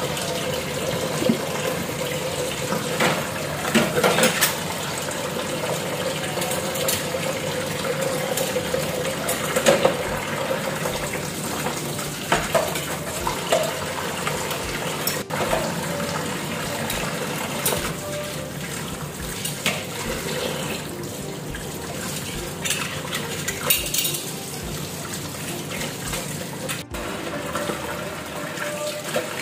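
Tap water running steadily into a stainless steel sink while dishes are washed by hand, with plates and cutlery clinking now and then.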